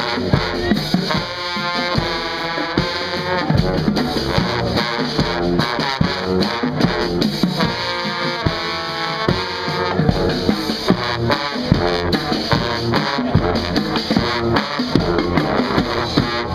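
A band playing live music, with a driving drum kit under sustained melodic lines.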